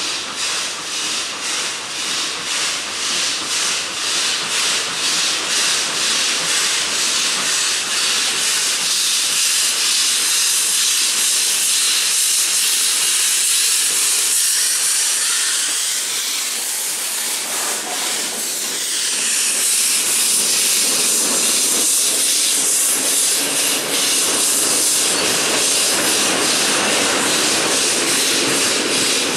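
Ol49 two-cylinder steam locomotive pulling away with a passenger train: loud, steady hiss of steam blowing from its open cylinder drain cocks over rhythmic exhaust chuffs, which are clearest in the first several seconds. About halfway the hiss sweeps in pitch as the engine passes close by, then the steam hiss goes on as the coaches roll past.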